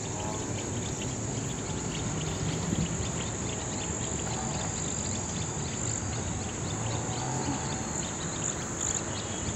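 Steady, high-pitched insect chorus trilling without a break, over a low background rumble.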